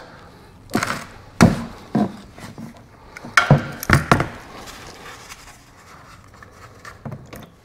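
Irregular metal knocks and clicks of a 10 mm hex socket tool working the oil drain plug loose on a BMW R1200GS engine, about six sharp knocks in the first half, then quieter handling as the plug is worked by hand.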